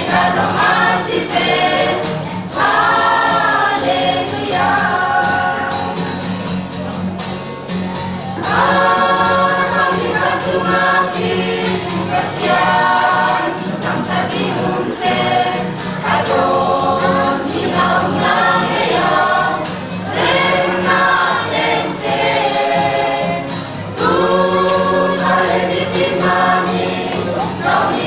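A mixed church choir of men and women singing a Christmas carol together with instrumental accompaniment, in phrases a few seconds long with short breaths between them.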